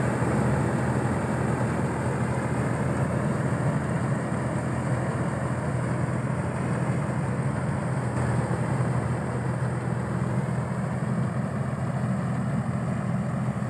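Balkar B 525 combine harvester running steadily under load as it harvests rice, a constant low engine hum with no change in pace.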